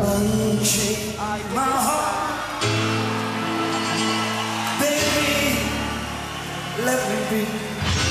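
Music with a singing voice over long held chords that change every two seconds or so.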